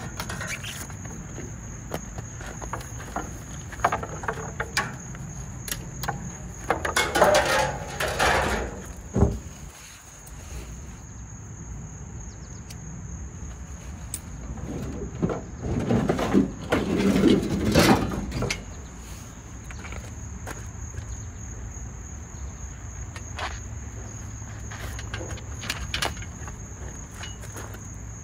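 Crickets chirring steadily throughout, with scattered sharp clicks and two longer stretches of scraping and clattering about seven seconds in and again around sixteen seconds, from scrap copper pipe being handled and cleaned.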